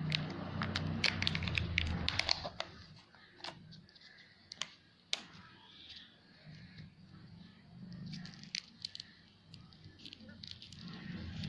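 Handling of plastic and foil toy packaging: a flurry of crinkles, tearing and sharp clicks, then scattered single clicks with another flurry later on.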